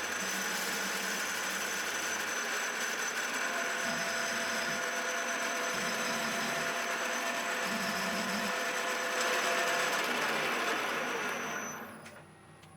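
Retrofitted CNC milling machine running: a steady mechanical hum with a high motor whine. It rises slightly about nine seconds in, then winds down and stops near the end.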